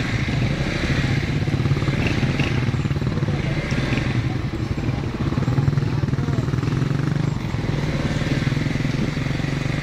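Motorcycle engine running steadily at an even low speed, heard from on board, with wind and road noise.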